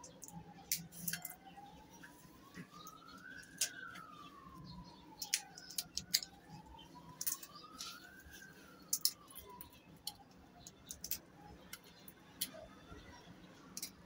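Sharp clicks and snaps of dry amaltas (Cassia fistula) pods being cracked and picked apart by hand, with bits dropping into a steel bowl. Behind them, a faint siren wails slowly up and down.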